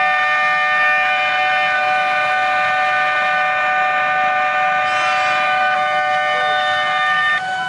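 Railway level-crossing warning alarm sounding a loud, steady electronic tone made of several pitches at once. Near the end the higher pitches cut off and a lower tone carries on.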